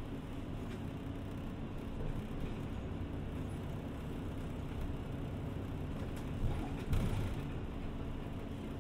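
City bus interior: the engine running with steady road and cabin noise as the bus travels, with two short knocks or rattles a little past two-thirds of the way through.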